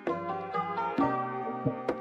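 Background music: a plucked-string tune with sharp percussive clicks.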